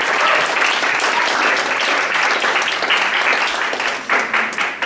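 Audience applauding, a dense run of clapping that thins out into scattered separate claps near the end.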